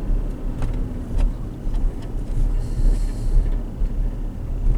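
Steady low road and engine rumble heard inside the cabin of a moving 2016 Dodge Durango, with a brief hiss about midway.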